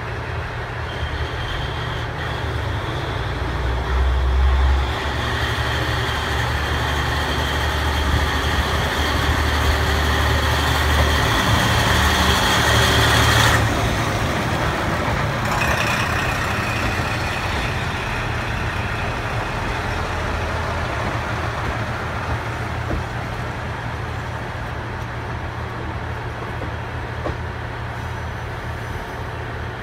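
KiHa 40-series diesel railcar running past close by: a deep engine rumble with a high whine over it, loudest about halfway through, then fading as the train moves off.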